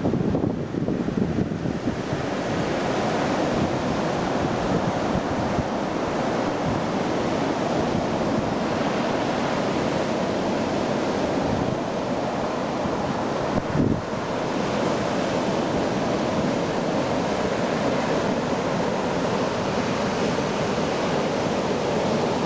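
Sea surf: small waves breaking and washing up a sandy beach in a steady wash. Wind buffets the microphone for the first couple of seconds, and there is a brief thump about two-thirds of the way through.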